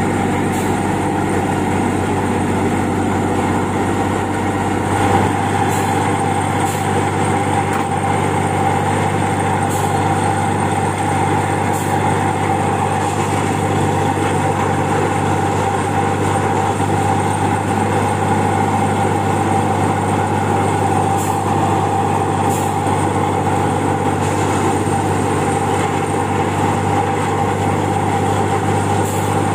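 Diesel engine of a Plasser & Theurer track maintenance machine running steadily at close range, with a steady low hum and a held mid-pitched whine; the lowest rumble drops off about five seconds in.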